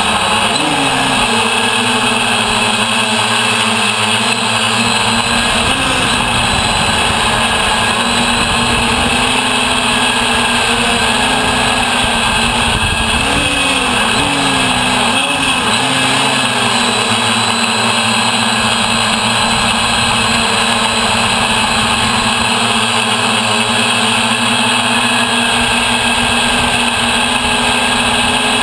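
The six brushless motors and propellers of a DJI F550 Flame Wheel hexacopter running in flight, heard loud and close from a camera mounted on the frame. The pitch holds steady, then wavers for a few seconds around halfway as the throttle shifts.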